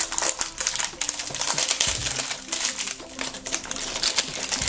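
Plastic blister-pack wrapping crinkling with many quick, irregular rustles and crackles as hands handle it and pull it off a plastic shell-shaped toy package.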